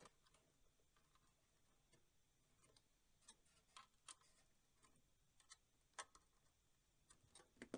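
Faint, scattered clicks and ticks of small screws being tightened into a computer power supply's sheet-metal housing, about ten light clicks at uneven intervals against near silence.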